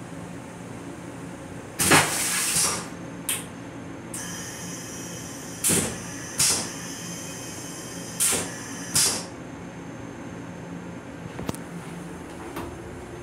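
Stainless-steel train-restroom toilet flushing: a loud hiss of about a second, then a steady fainter hiss broken by four short hissing spurts that stops about nine seconds in, over a steady background hum. Two light clicks near the end.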